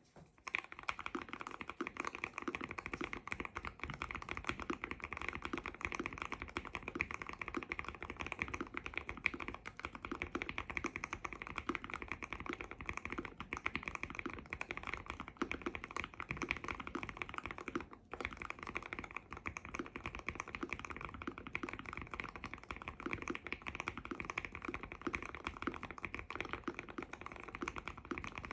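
Continuous fast typing on a Keychron Q1 mechanical keyboard with hand-lubed Aqua King V3 linear switches, brass plate and tape mod, giving a dense run of muted keystroke clacks. There is a brief pause about 18 seconds in.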